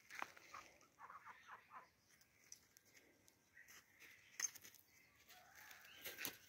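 Faint bird calls, with scattered soft clicks and taps.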